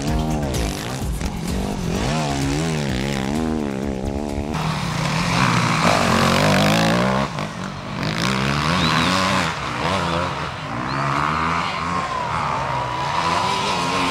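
Yamaha WR250F four-stroke single-cylinder enduro motorcycle engines revving hard, the pitch swinging up and down in quick swells as the riders work the throttle and gears through the corners. A different bike takes over about four and a half seconds in.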